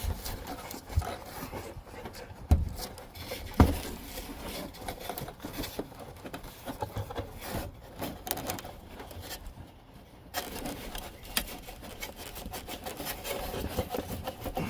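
Hands working at a plastic car wiring connector, trying to pull it apart: irregular rubbing and scraping, with two sharp knocks about two and a half and three and a half seconds in.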